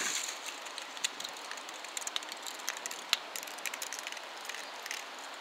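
JR West 227 series electric train receding along the track: a steady hiss with scattered sharp clicks of wheels on the rails, fading into the open-air background.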